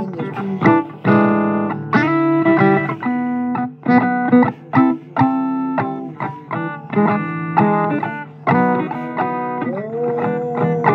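Guitar playing blues: separate plucked notes and short chords with sharp attacks, and one note bent upward and held near the end.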